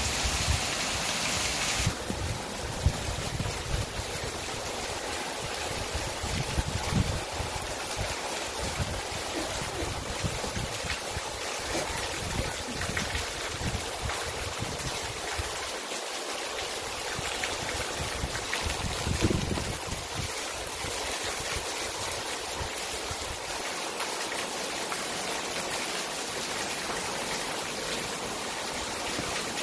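Torrential rain: a steady hiss of a heavy downpour hitting the ground, plants and puddles, with water pouring off a roof edge. A few brief low thumps stand out above it.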